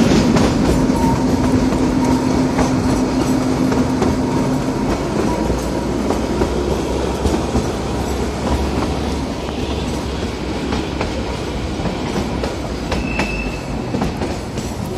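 Kalka–Shimla narrow-gauge toy train running, heard from a carriage window: a steady rumble of wheels on rail with scattered sharp clicks over the track. A low steady hum in the first few seconds and a short high squeal near the end.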